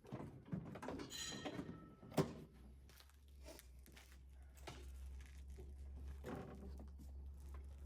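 Plastic rear bumper cover being handled and offered back up to the car: irregular knocks and rustling, with one sharp knock about two seconds in. A low steady hum runs underneath from a little after that.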